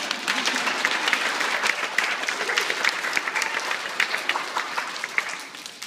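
A crowd of seated school children applauding, a dense patter of many hands clapping that tails off near the end.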